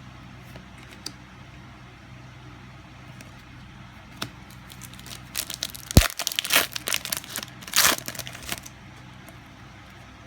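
Crinkling and tearing of trading-card booster-pack wrapping being handled, with a sharp click about six seconds in, over a steady low hum.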